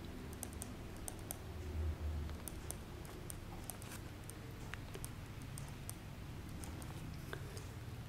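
Ballpoint pen writing on a lined notebook page: a quiet, irregular run of short scratches and ticks as the strokes are made, over a faint low hum.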